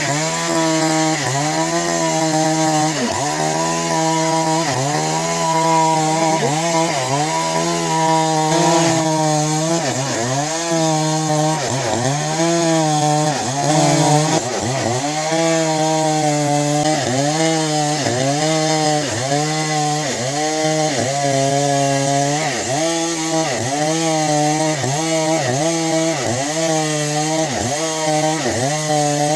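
Stihl MS 382 two-stroke chainsaw running at high revs while cutting wood. Its pitch dips and recovers about once a second, a little faster near the end.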